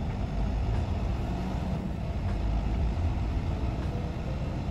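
Diesel semi truck's engine and road rumble heard from inside the cab as the truck drives: a steady low rumble with faint light ticks over it.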